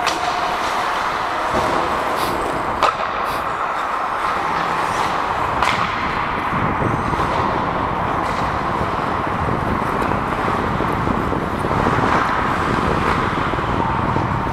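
Ice hockey play heard from a skating referee's helmet: a steady rush of skate blades on ice and air, with a few sharp clacks.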